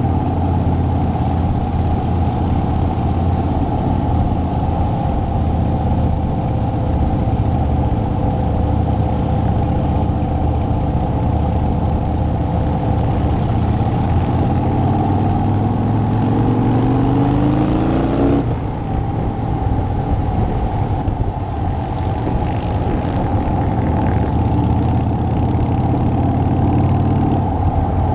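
Motorcycle engine running while riding at road speed. About 15 s in, the revs climb for a few seconds as it accelerates, then drop suddenly at a gearshift.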